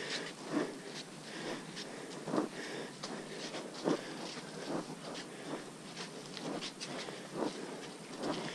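Footsteps of hikers climbing a muddy, leaf-strewn dirt trail: irregular scuffs and crunches, about one to two a second.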